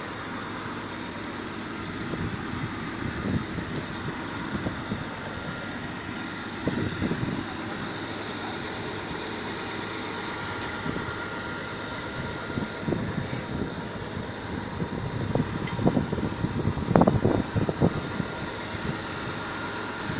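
Oil drilling rig machinery running steadily, a continuous mechanical noise with a faint whine in it. Irregular low thumps come through it, most of them in a cluster late on.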